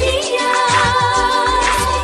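Indian dance song with singing over sustained synth notes and a steady drum beat.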